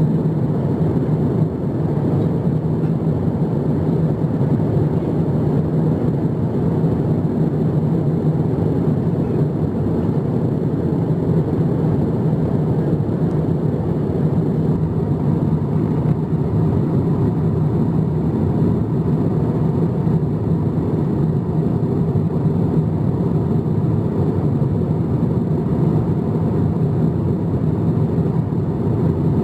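Steady cabin noise inside an Airbus A350-900 in flight: the even, low rumble of its Rolls-Royce Trent XWB engines and the airflow past the fuselage, with a constant low hum.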